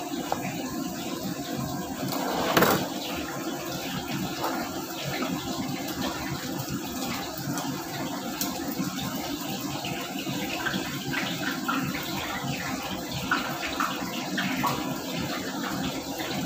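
Steady rushing noise of a commercial kitchen at work, with a sharp knock about two and a half seconds in.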